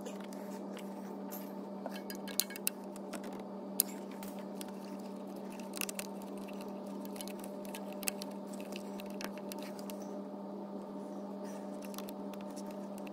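A steady hum with a scatter of short, sharp plastic clicks and light rustling as fingers work a diesel injector's fuel return hose and its locking clip onto the connector.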